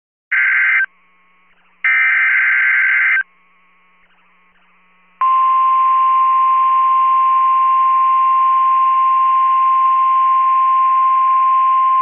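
NOAA Weather Radio alert signal: two bursts of the warbling SAME digital header data, then, about five seconds in, the steady single-pitch 1050 Hz warning alarm tone, which marks a warning-level alert.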